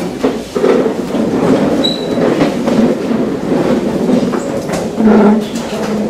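Many chairs being shifted and scraped across a hard floor, a continuous clatter with knocks and a brief high squeak about two seconds in.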